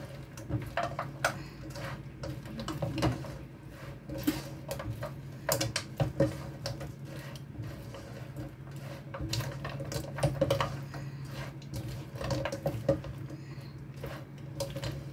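Wooden spatula scraping and knocking against a nonstick wok as sauce-coated fried chicken pieces are tossed, in irregular clicks and scrapes. A steady low hum runs underneath.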